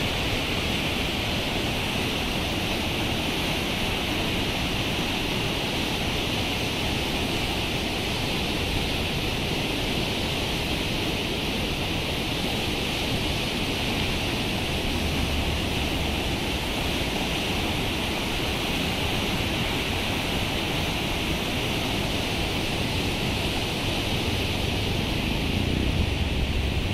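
Swollen mountain river rushing in fast whitewater rapids: a steady, even roar of water. A low rumble comes in about halfway through and again near the end.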